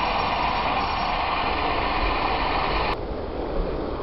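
Small-scale live steam train running on a garden railway: a steady hissing, rattling running noise that drops abruptly to a quieter hiss about three seconds in.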